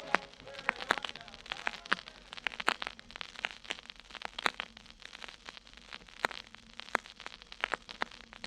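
Vinyl LP surface noise in the silent groove between two tracks: scattered clicks and pops over a faint hiss and low hum.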